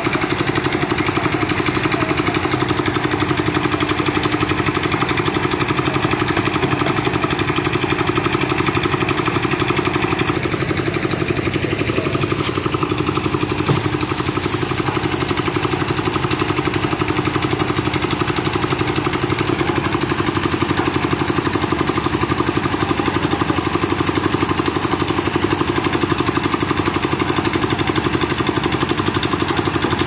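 Engine of a drum concrete mixer running steadily, a continuous even engine note with no breaks; the sound shifts slightly about ten seconds in.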